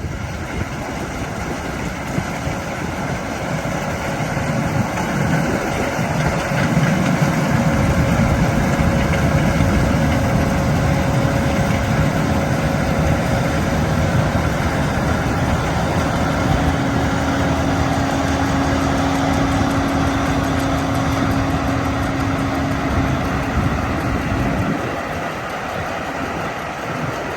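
Heavy farm-machine diesel engine running steadily, its low rumble growing heavier about eight seconds in and dropping away near the end.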